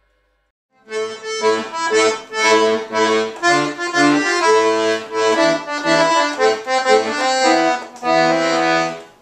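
Piano accordion playing a tune: a melody over an alternating bass, starting about a second in and dying away near the end.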